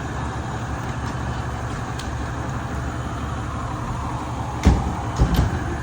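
Steady low rumble of a motor vehicle, with a heavy thump near the end and a second, shorter knock just after it.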